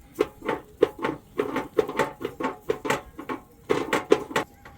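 Rapid irregular series of sharp knocks, about three to four a second, with a brief pause about three and a half seconds in.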